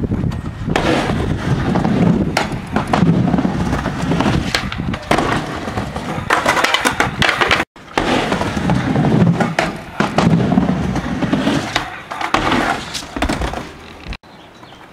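Skateboard wheels rolling back and forth on a wooden mini ramp, the rumble swelling with each pass, with sharp clacks of the board and trucks hitting the coping and deck. The sound breaks off once about halfway through and resumes.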